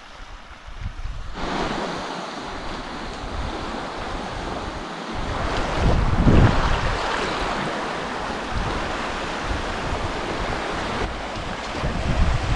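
Wind buffeting the microphone over the rush of surf on a coral-sand beach. The sound steadies in after a second or so and swells about six seconds in.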